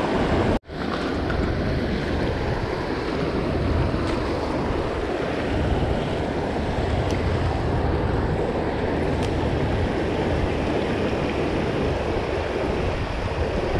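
Steady rush of water from a shallow, rocky creek riffle, mixed with wind buffeting the microphone. The sound cuts out completely for a moment about half a second in.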